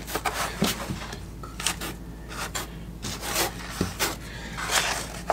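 Notched trowel scraping and combing thin-set mortar in a series of short, irregular strokes.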